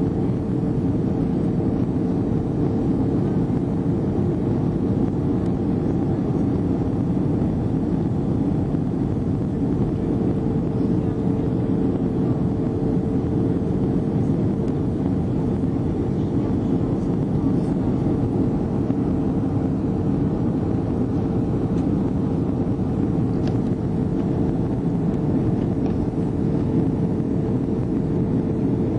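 Jet airliner cabin noise on the approach to landing: the steady roar of the engines and the air rushing past the fuselage, heard from inside the cabin, with a steady droning hum under it.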